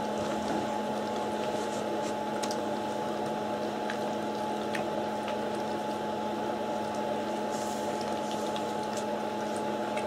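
Dog eating from a stainless steel bowl, with faint scattered clicks and licks. A steady hum runs underneath and is the loudest sound.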